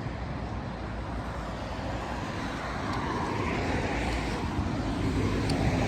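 Road traffic passing on a busy road: a steady rush of vehicle noise that grows a little louder toward the end.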